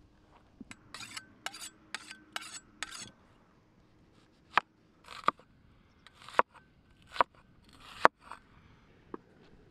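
A cleaver slicing through onions and striking a wooden cutting board: five sharp knocks about a second apart, each led by a short slicing rustle. Before them, in the first three seconds, comes a quick run of lighter clicks and rustles.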